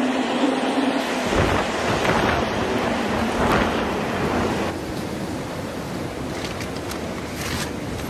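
Strong snowstorm wind blowing in gusts, easing to a steadier, lower rush a little over halfway through, with a few brief sharper bursts near the end.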